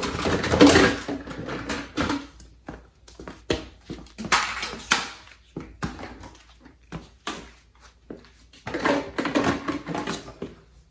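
Small plastic toys clattering and knocking as a child rummages through a bucket and drops pieces into place, with bursts of rummaging near the start, in the middle and near the end.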